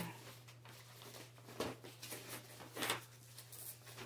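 Faint rustling and brushing of the doll's cardboard box and packaging as it is handled, with two short louder swishes about one and a half and three seconds in, over a steady low hum.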